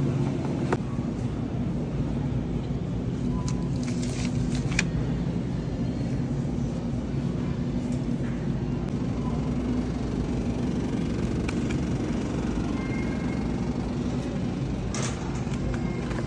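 Steady low hum and rumble of supermarket background noise, with a few light clicks and knocks from handled packaging.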